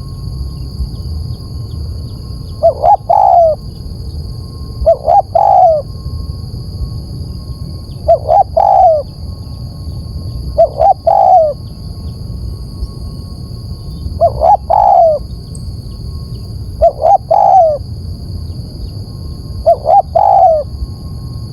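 Spotted dove cooing, a lure call: a short phrase of two or three low coos repeated about every three seconds, seven times, over a steady low rumble.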